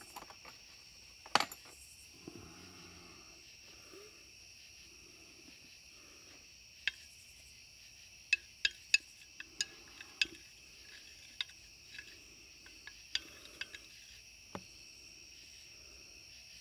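A steady high-pitched trill, with about a dozen sharp clicks and taps, most of them close together around the middle.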